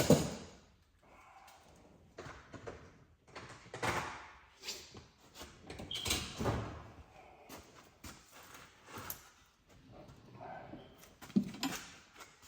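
A loud bang at the start, then irregular knocks and clunks of things being handled and set down in a workshop.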